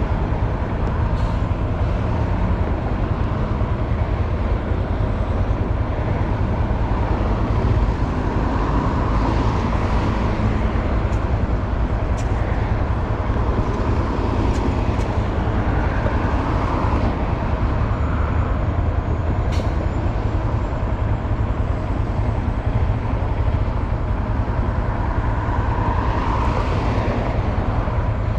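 Honda Grom motorcycle being ridden, its engine running steadily under a heavy low rumble.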